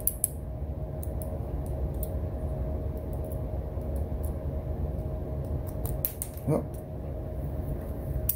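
Faint light clicks of a tiny driver bit and small pocket-clip screws being fiddled into a folding knife's handle, over a steady low hum. One brief rising whine about six and a half seconds in.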